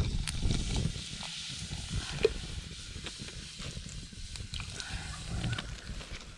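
Small wood campfire crackling and hissing under a metal cooking pot, with scattered small pops.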